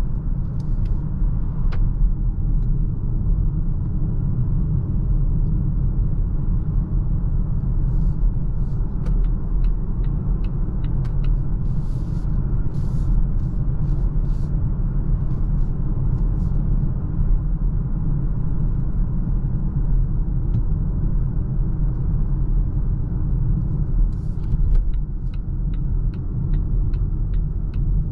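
In-cabin road and tyre noise of a 2023 Volvo XC40 Recharge electric SUV driving at speed: a steady low rumble, with scattered light ticks over it partway through and again near the end.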